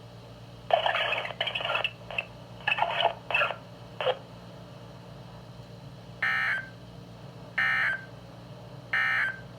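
Midland WR120 weather radio playing NOAA Weather Radio digital data tones: three short, identical buzzy bursts about a second and a half apart near the end, the SAME end-of-message signal that closes the required weekly test. Before them, about a second in, comes a few seconds of broken, irregular bursts from the radio, and a faint steady hum runs underneath.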